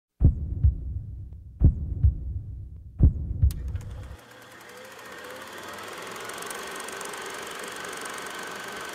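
Three pairs of deep, heartbeat-like thumps, then an abrupt change about four seconds in to a steady engine-like hum with a faint whine.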